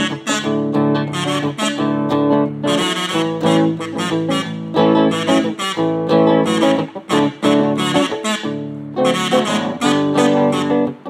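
Steel-string guitar played with a pick: runs of picked single notes and chords, with sustained ringing tones under the attacks.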